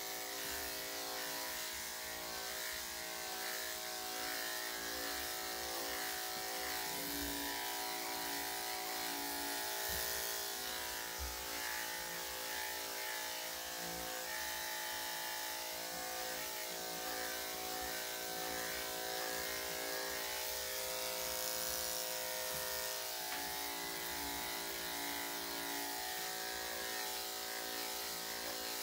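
Corded electric dog clippers running steadily through a small dog's coat: a constant motor buzz.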